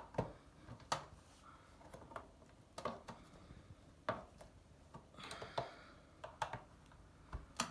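Flat screwdriver prying at the plastic clips of a Beko washer dryer door: scattered sharp clicks and knocks as the clips are worked loose, with a short scraping stretch about five seconds in.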